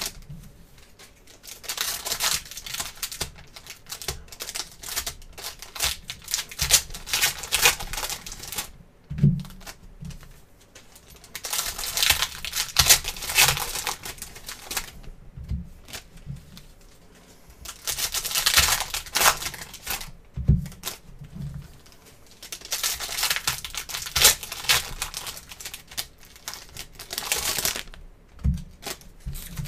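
Foil trading-card packs crinkling and tearing as they are opened, and cards sliding and clicking against each other as they are flipped through by hand, in several bursts of a few seconds each. A few short soft knocks come in between, as card stacks are set down.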